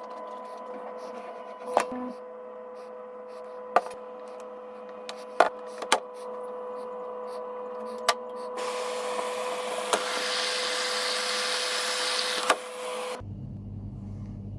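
Altus AL CM 91050R washing machine: a steady hum with sharp clicks every second or two, then a loud rushing hiss from about eight and a half seconds in that cuts off suddenly near the end.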